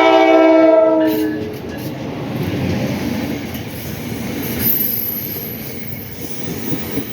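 A passenger train's air horn sounds a chord of several notes and cuts off about a second in. The train then rolls past with a steady rumble of wheels on rail, and a thin high wheel squeal comes in during the second half.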